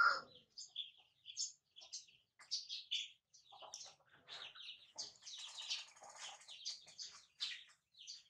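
Baby monkey giving a string of short, high-pitched squeaks and chirps, scattered at first and coming thicker about halfway through.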